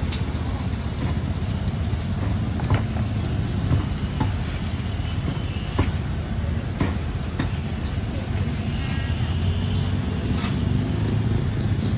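Steady low rumble of road traffic passing on the street, with a few sharp clicks and taps from handling at a street food stall.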